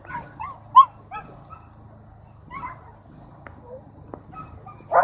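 A dog yipping and whining in short, high-pitched yelps, the excited cries of a dog at a lure coursing run. The yelps come in a quick run in the first second or so, loudest about a second in, thin out in the middle, and a loud one comes at the very end.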